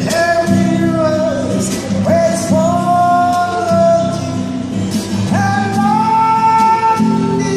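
A man singing three long held notes, the last two sliding up into pitch, over a strummed guitar.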